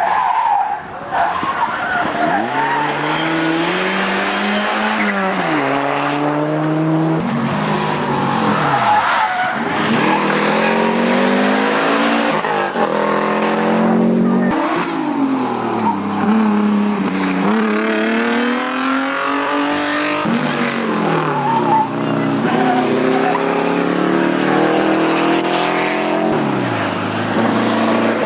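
A car engine running hard at speed, its pitch climbing and then falling back again and again as it revs up and comes off.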